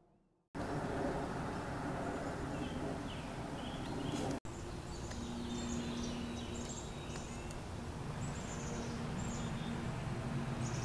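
Outdoor ambience of birds calling, many short high chirps over a steady background rumble, with a low steady hum joining about five seconds in.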